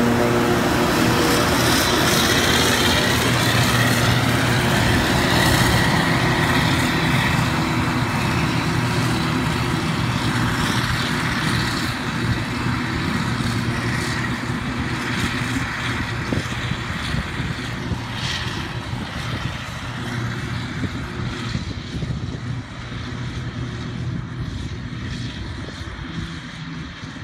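Claas Jaguar forage harvester and the tractor hauling the forage wagon beside it, diesel engines and chopper running steadily, fading slowly as the machines move away across the field.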